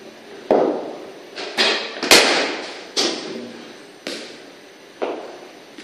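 A series of sharp knocks, about one a second, each with a short echo in a walled cricket practice net. The loudest and sharpest comes about two seconds in.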